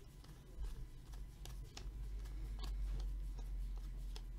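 A stack of cardboard basketball trading cards being thumbed through by hand, the card edges flicking with irregular light clicks over a low steady hum.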